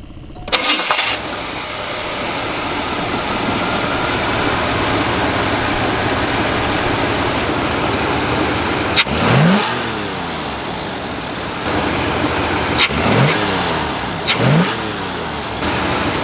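1980 Cadillac Coupe de Ville's carbureted 368 V8 running during a quick carburetor tune-up. It comes in sharply about half a second in, runs steadily, and is blipped three times in the second half, each rev rising quickly and falling back.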